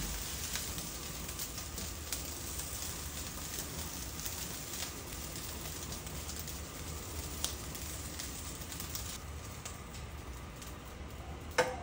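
Fried rice sizzling in a pan, with scattered small crackles and clicks of a spatula. A sharp knock near the end.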